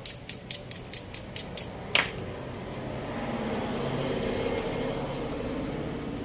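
A quick run of about nine sharp mechanical clicks, roughly four a second, then a louder snap about two seconds in, followed by a low hum that swells and fades.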